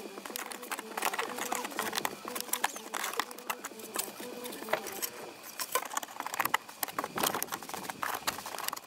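Plastic fog light grille in an Audi A4 B8 front bumper being wiggled and pulled by hand: many irregular clicks and rattles of plastic as its hooks and clips work against the bumper.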